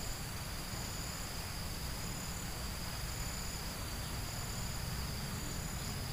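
Insects calling: a steady high buzz with a higher tone that pulses on and off about once a second, over a low rumble.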